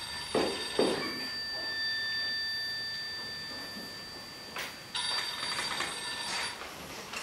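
A telephone ringing: a long ring that slowly fades away, then a second ring starting about five seconds in. There are a couple of soft knocks in the first second.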